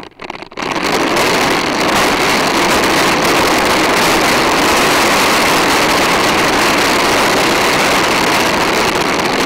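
Plastic wheels of a PlasmaCar ride-on toy rolling over rough asphalt: a loud, steady rolling noise carried through the toy's body to the camera mounted on it. It starts after a few short scrapes and settles in about half a second in.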